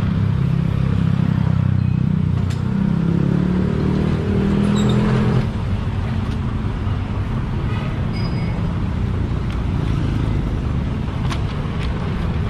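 Street traffic noise, with a motor vehicle's engine running close by for about the first five seconds before it drops back to general traffic sound.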